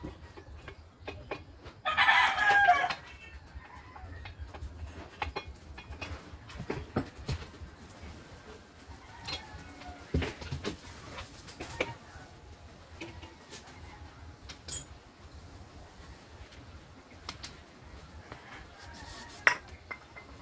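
A bird calls loudly once, about two seconds in, over scattered light clicks and knocks.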